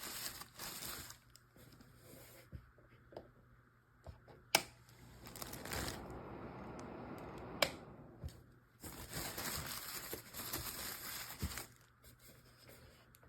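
Intermittent rustling and crinkling handling noises, with two sharp clicks a few seconds apart.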